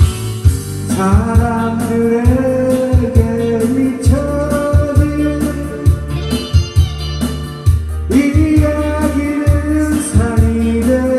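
A man singing a Korean pop song into a microphone over a karaoke backing track with a steady bass and drum beat, in two long held phrases with a short break between them.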